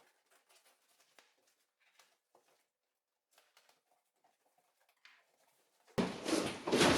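A taped cardboard shipping box being opened: faint scratches and taps at first, then about six seconds in a sudden loud spell of cardboard rustling and scraping.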